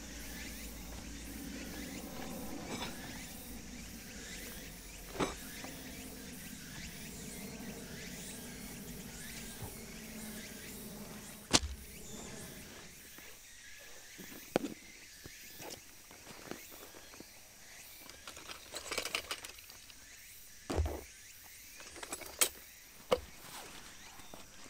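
Camping gear being handled and unloaded from a car's cargo area: scattered knocks and thumps, the loudest a little before halfway, over a steady outdoor background.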